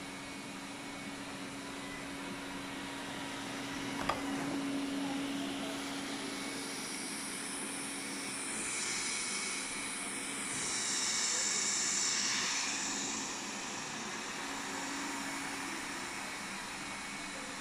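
Xiaomi Mijia 1C robot vacuum running: a steady fan whir with a low hum, a single knock about four seconds in, and a hiss that swells louder around the middle before settling.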